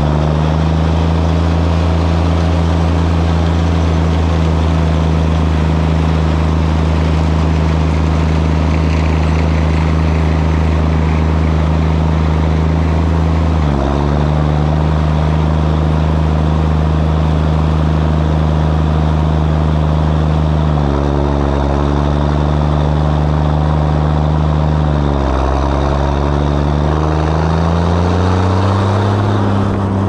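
John Deere 7710 tractor's six-cylinder turbo diesel running steadily with the exhaust stack close by. Engine speed dips briefly about halfway in, drops lower a little later, and rises again near the end.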